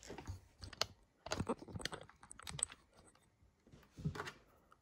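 Hands coating raw chicken pieces in flour in a glass bowl: irregular light clicks and taps.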